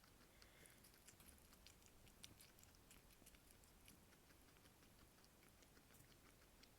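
Guinea pig chewing food: faint, quick, irregular crunching clicks.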